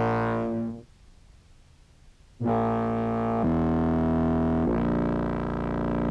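Contrabass clarinet samples played through a chain of effects pedals with filter and fuzz, giving low, buzzy sustained notes rich in overtones. One note fades out under a second in. A new phrase enters about two and a half seconds in, shifts pitch twice, and cuts off near the end.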